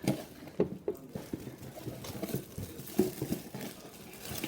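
Soft, irregular light taps and handling noises of a foam squishy toy being squeezed and handled for a slow-rise test.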